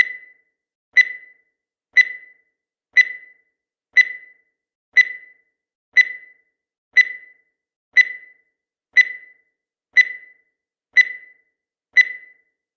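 Countdown timer's sound effect: a short, clear beep once a second, thirteen in a row, each dying away quickly, with silence between.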